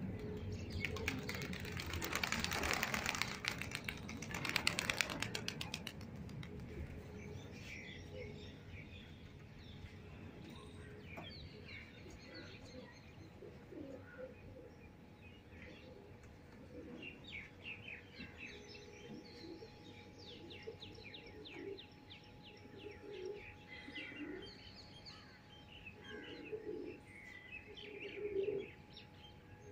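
A flock of domestic pigeons taking off in a loud burst of wing-flapping over the first few seconds. Afterwards there are scattered short bird chirps and a few low pigeon coos.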